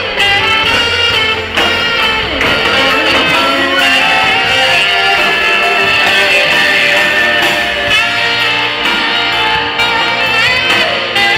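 Live band playing amplified rock music, the electric guitar prominent over keyboards and drums, with held lead notes that bend in pitch.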